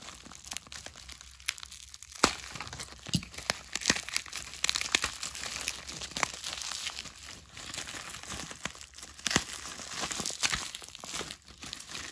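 Packaging crinkling and rustling as it is handled, with scattered sharp clicks and knocks throughout.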